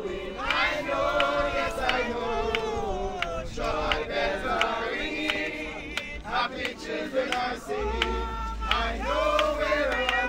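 A group of mourners singing a gospel hymn together, men's and women's voices mixed.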